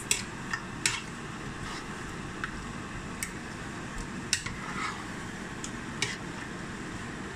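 A spatula stirring thick egusi soup with meat in a pot, with scattered sharp knocks as it strikes the side of the pot.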